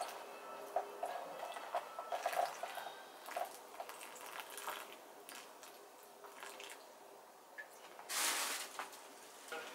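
Water being poured into a potted juniper cutting, faint trickling and dripping with small taps and clinks of the pot. A short louder burst of noise comes near the end.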